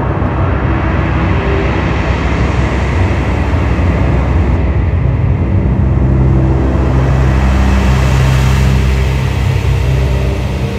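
Live electronic music from a modular synthesizer: a loud, dense, rumbling low drone under a hissing noise wash. The hiss grows brighter around the middle and eases near the end.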